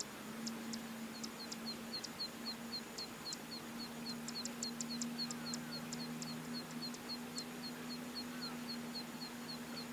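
A small bird calling: a quick, even run of short high notes, about four a second, mixed with sharp irregular ticks. A steady low hum runs underneath.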